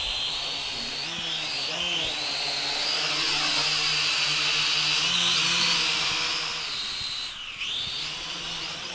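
Small toy quadcopter's electric motors and propellers whining as it flies and hovers, the high pitch wandering up and down with the throttle. Near the end the whine drops sharply as the throttle is eased off, then climbs again.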